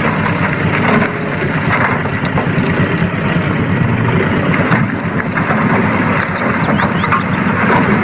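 Isuzu Elf dump truck's diesel engine running steadily, with a low pulsing rumble, while its hydraulic hoist holds the loaded bed tipped up to dump soil and rocks.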